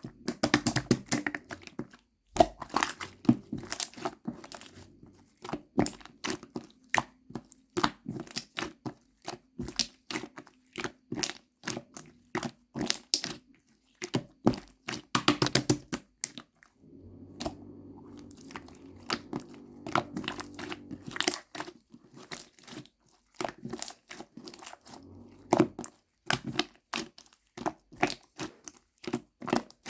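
Close-up crinkling, crackling and crunching of handled material: a rapid, uneven run of sharp clicks and crackles, broken by short pauses.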